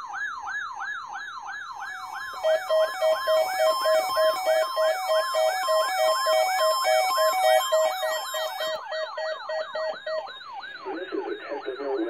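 Several NOAA weather alert radios sounding their alarms together, set off by a Required Weekly Test. A siren of falling sweeps repeats about three times a second, joined after about two seconds by pulsed on-off beeping and high chirps that stop a couple of seconds before the end.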